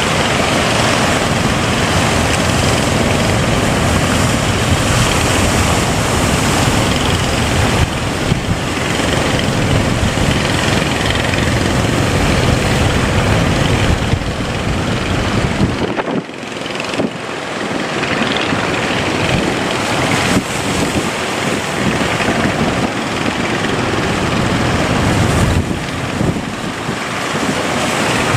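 Wind buffeting the microphone over the rush of sea waves aboard a boat in rough water, a dense, loud noise that dips briefly about halfway through.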